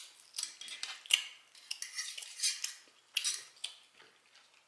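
Close-miked eating sounds: wet chewing and lip smacking on ribs and fried chicken, a string of short, irregular clicks and crackles.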